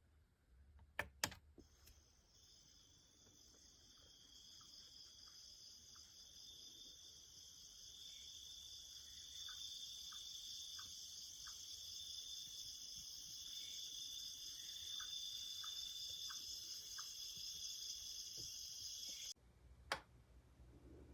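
A recorded nature sleep sound from a sunrise alarm clock's speaker: a steady, high-pitched insect-like trill with faint short chirps. It fades in after two clicks about a second in, and cuts off suddenly near the end, followed by another click.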